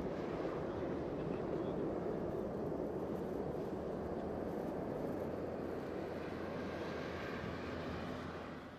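Distant, steady roar of a Boeing 747-400F's four jet engines as the freighter rolls out on the runway after touchdown, fading out near the end.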